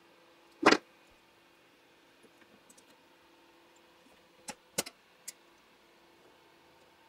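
One loud, sharp clack a little under a second in, then a few light metallic clicks around the middle as the tension assembly is handled and pushed back onto the head of a Consew 226 industrial sewing machine.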